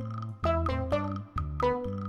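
Bouncy children's background music: a steady bass line under short, evenly paced melody notes.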